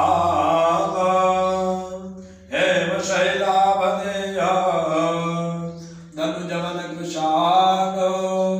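A man's voice chanting a devotional mantra to Hanuman in three long phrases on a nearly steady pitch, with short breaks for breath between them.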